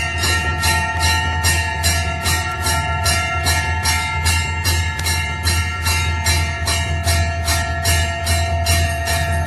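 Temple bell struck rapidly and evenly, about three strikes a second, its tones ringing on continuously over a steady low hum.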